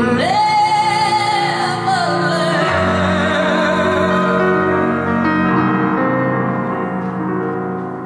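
High male voice singing a long wordless held note over sustained keyboard chords; the note leaps up just after the start, holds, then slides down to a lower note about two seconds in, held with vibrato.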